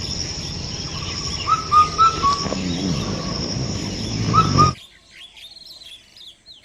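Birds calling in a morning garden: short hooked calls given in little runs, over a steady high-pitched drone. About two-thirds of the way through the sound cuts abruptly to a quieter passage of rapid, high, twittering chirps from other birds.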